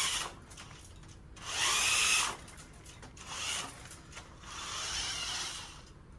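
Electric drive motors of a VEX V5 competition robot whining in several short spurts as the robot is driven in stops and starts, the longest and loudest about a second and a half in.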